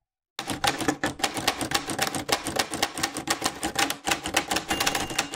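Typewriter sound effect: rapid mechanical keystrokes clacking, several a second, with a thin high ring near the end.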